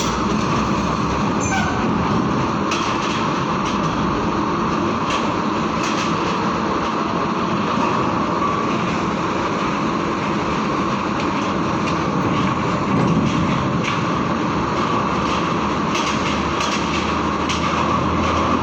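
Heavy tronton trucks' diesel engines running steadily as they drive off a ferry, with scattered short clanks and rattles.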